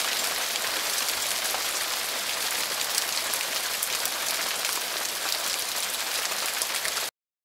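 Steady rain falling, a dense even patter of many drops, which cuts off suddenly near the end.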